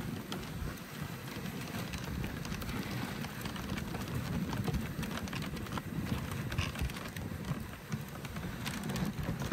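Dog sled running over a packed snow trail behind a husky team: a steady rumble and hiss of the runners on the snow, with scattered small clicks and knocks.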